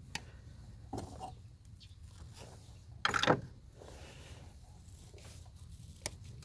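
Screwdriver and hands working a rubber intake hose loose from its fitting: a few small clicks and one brief louder scrape about three seconds in.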